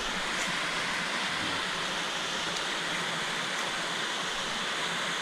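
Waterfall and stream water rushing steadily.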